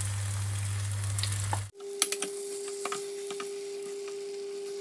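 Garlic, onion and tomato sizzling in a stainless frying pan as canned mackerel is tipped in. After a sudden cut about two seconds in, a wooden spoon stirs the fish through, tapping and scraping against the pan over a steady hum.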